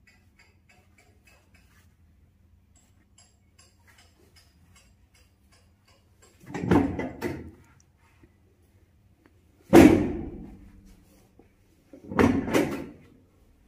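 Chiropractic drop table's padded section dropping under the practitioner's thrust during a spinal adjustment, three times. Each drop is a loud thud: the first and last are doubled, and the middle one is a single sharp drop that fades away.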